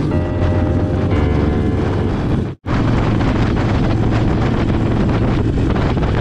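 Motorcycle engine running at speed under heavy wind noise on the microphone, with a brief dropout about two and a half seconds in.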